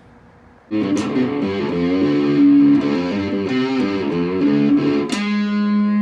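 Electric cigar box guitar played through an amplifier, starting under a second in with picked notes and chords. A new chord is struck about five seconds in.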